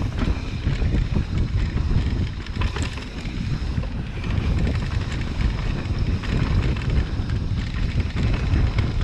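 Wind buffeting the microphone as a mountain bike rolls fast down a dirt trail, with a steady rumble from the tyres and many small clicks and rattles from the bike.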